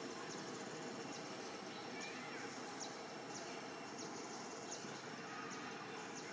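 Outdoor forest ambience: a steady hiss with short, faint high-pitched chirps every second or so and an occasional faint sliding call.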